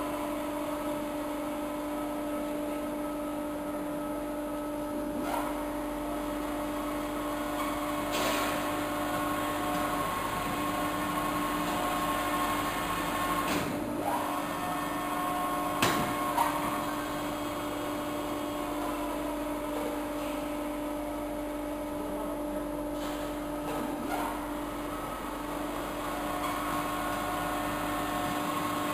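Evashred EV110E Panther shredder and its force-feed hopper running steadily as it shreds a compressed foam rubber bale into strips: a constant machine hum and whine, with a few sharp knocks near the middle.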